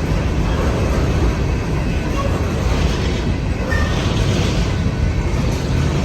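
A train passing a railroad crossing: a steady, dense low rumble of wheels and cars on the rails.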